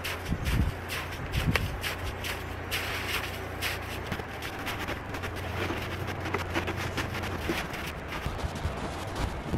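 Irregular crunching and scraping footsteps of plastic snowshoes stamping in soft, granular snow, trying to pack it down; the warm weather has loosened the snow so it will not firm up.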